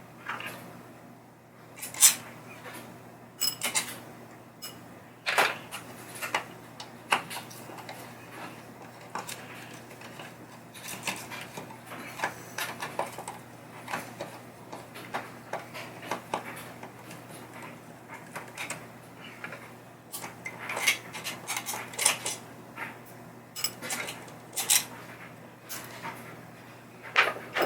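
Irregular clicks, taps and clatter of small hard parts and tools being handled and set down, over a steady low hum.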